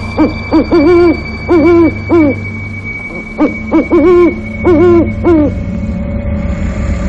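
Owl hooting as a horror sound effect: two matching series of five hoots, each two short, two drawn out, then a short one, over a steady low eerie drone with a faint high whine.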